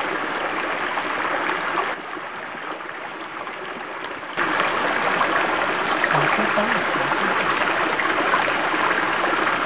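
Stream or river water flowing steadily. The sound drops abruptly about two seconds in and comes back louder a couple of seconds later.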